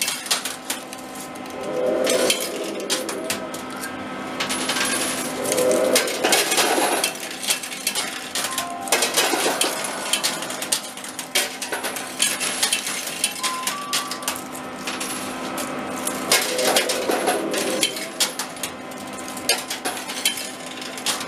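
Metal coins clinking and clattering in an arcade coin pusher machine as coins are dropped in and land on the playfield and against the piles of other coins, a constant run of sharp metallic clicks. A low steady hum runs underneath.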